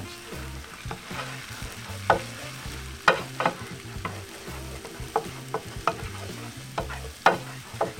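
Garlic cloves and red pepper flakes sizzling in hot oil in a frying pan as they are stirred, with a steady frying hiss. The spoon knocks and scrapes against the pan every second or so, irregularly.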